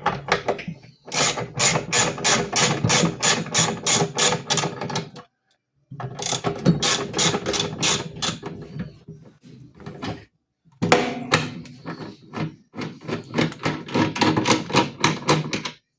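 Ratcheting clicks, about four a second, in three runs with short pauses, from a ratchet wrench unbolting the motor of a GE top-load washing machine.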